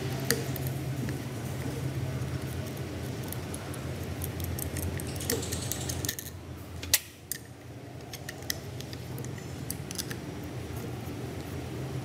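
Small metallic clicks and scrapes of a long T-handle socket wrench working the screws of a PE inline diesel injection pump's mechanical governor housing, with one sharp click about seven seconds in, over a steady low hum.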